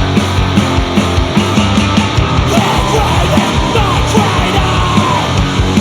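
Heavy sludge and grind metal recording playing: distorted guitars over a steady kick drum, with shouted vocals and sliding high notes through the middle.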